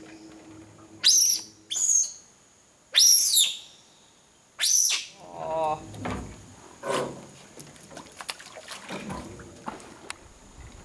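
Giant otter pup squealing: four loud, sharp, high-pitched calls in the first five seconds, several falling in pitch. They are the calls of a pup separated from its family group.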